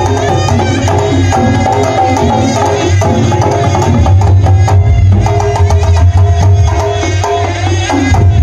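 Sundanese pencak silat accompaniment music (kendang pencak) played loud: quick hand-drum patterns under a pitched melody with bending notes.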